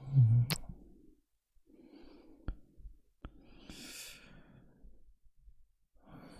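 A man breathing slowly close to an ASMR microphone, about three breaths. The first is a low, audible sigh, and there are a few sharp mouth clicks in between.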